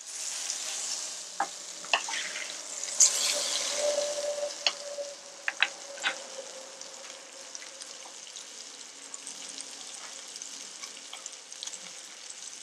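Ribeye steak sizzling in butter with garlic cloves in a skillet, with scattered sharp pops and spatters. The sizzle is louder for the first few seconds, just as the steak is moved in the pan, then settles to a quieter, steady sizzle.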